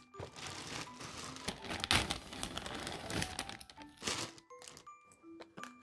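Plastic poly mailer bag crinkling and rustling as hands pull it open off a cardboard box, with a sharper crackle about two seconds in.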